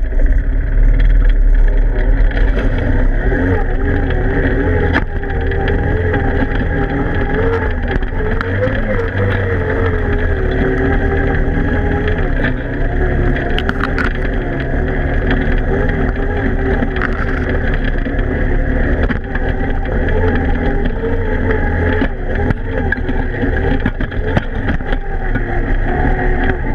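Odes 400 ATV engine running steadily under load, its pitch wavering with the throttle, as the quad pushes through broken ice and shallow water, with scattered knocks from ice slabs against the machine.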